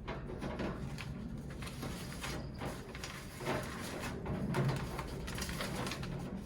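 Budgie cage being cleaned out: scattered rustles, knocks and clicks of the paper liner and cage tray being handled.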